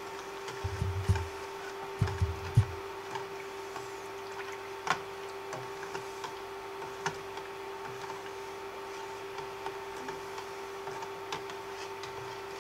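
Induction cooker running with a steady hum, while a spoon stirs sugar into water in a stainless steel pot: scattered light clinks and scrapes against the pot, with a few dull knocks in the first three seconds.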